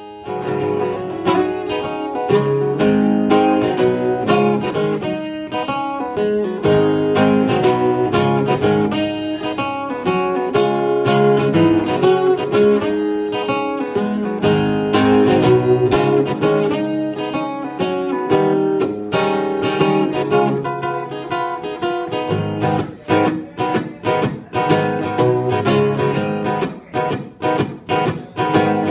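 Acoustic guitar playing a blues instrumental intro of picked notes and chords. Near the end it turns to short strummed chords, each cut off sharply.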